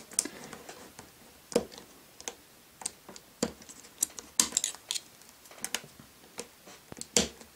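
Snap-off craft knife blade shaving and scraping along a plastic K'nex rod, trimming it down: a string of short, irregular clicks and scrapes as slivers of plastic come away.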